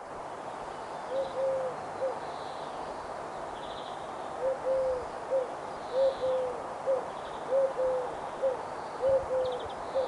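A bird cooing: low hooting phrases of two notes, the second drawn out and falling, followed by a short note. The phrase comes once about a second in, then repeats about every one and a half seconds from about halfway, over a steady hiss.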